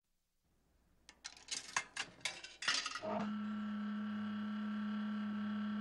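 Animated logo sound effects: a quick run of sharp metallic clicks and clinks, then about three seconds in a steady synthesized tone that holds.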